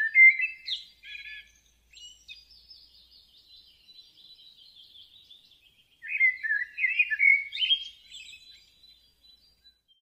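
Bali starlings calling: loud chirps and whistled notes at the start, a softer, fast chattering in the middle, then another loud run of whistles and chirps from about six seconds in.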